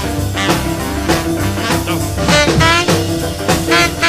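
Background music: an upbeat jazz-blues instrumental passage.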